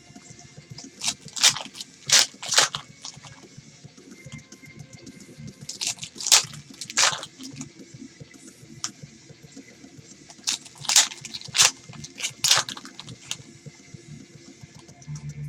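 Trading-card pack wrappers being torn open and crinkled in short crackling bursts, three clusters of several sharp rips each.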